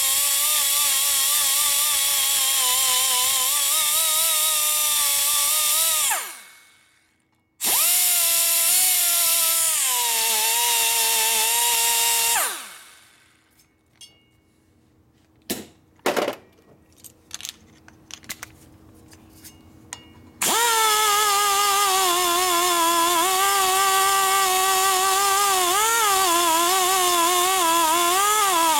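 Die grinder porting a Harley-Davidson Twin Cam cylinder head: a high whine that sags and wavers in pitch as the bit cuts into the port. It spins down twice, gives a brief blip and a few light clicks in the pause, then runs and cuts again near the end.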